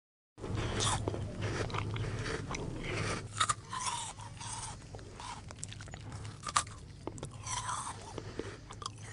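A person eating ice cream close up, with irregular bites, crunchy chewing and wet mouth sounds.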